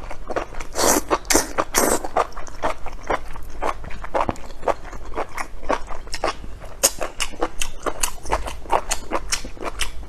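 Close-miked chewing of spicy enoki mushrooms: a dense run of short, wet mouth clicks and smacks, several a second.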